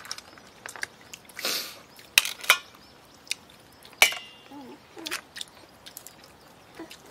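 Table sounds of a seafood hotpot meal: scattered clicks and knocks of crab and shellfish shells and utensils against a metal pot, with one sharp metallic clink that rings briefly about four seconds in.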